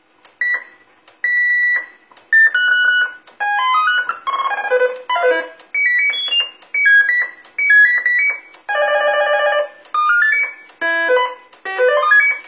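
Roger beep of a homemade CB base microphone, played over and over as different presets are selected. About a dozen short electronic beep tunes come one after another, each a few quick stepped tones, with a longer warbling one about two-thirds of the way through.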